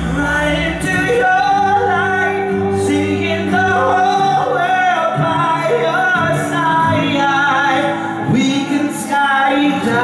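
Male pop vocal group singing live into handheld microphones over amplified musical accompaniment, with held and bending sung notes.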